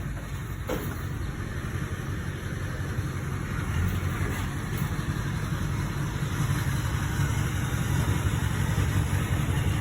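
Vehicle engine running with a steady low rumble that slowly grows louder, with a single click about a second in.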